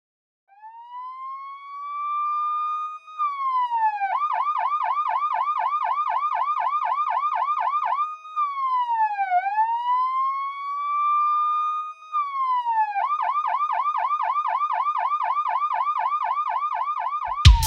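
Electronic police siren, a single clean tone sweeping slowly up and down in a wail, switching to a fast yelp of about five cycles a second, back to a wail, then yelp again until it cuts off.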